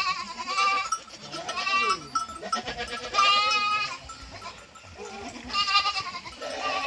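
A flock of sheep or goats bleating. There are three loud, drawn-out bleats, each a second and a half to two seconds apart, with fainter calls in between.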